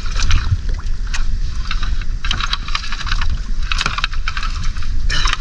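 Seawater splashing and dripping in short, irregular bursts as a fishing net is hauled by hand up over the side of an outrigger boat, over a steady low rumble.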